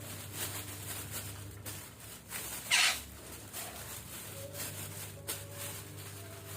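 A parakeet, the betet or red-breasted parakeet, gives one short, harsh squawk a little under three seconds in. Around it are scattered light rustling and clicking sounds over a steady low hum.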